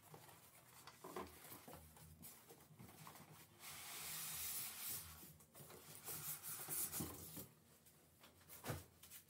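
Faint rustling and scraping of a cardboard carton being handled and tipped onto its side, with a longer sliding scrape about four seconds in as the polystyrene box is drawn out of it, and a short knock near the end.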